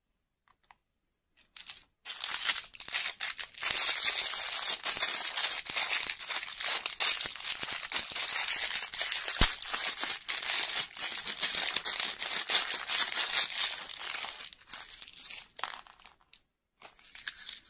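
Small clear plastic bag being torn open and crinkled by hand, a dense crackling rustle that starts about two seconds in and fades out near the end.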